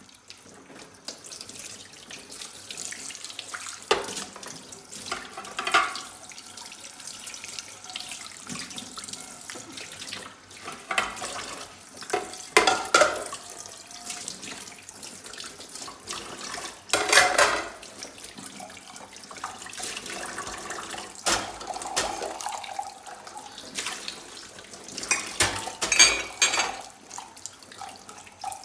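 Tap water running steadily into a kitchen sink while dishes are rinsed, starting as the tap is opened. Dishes knock and clink against each other and the sink every few seconds, some with a short ring.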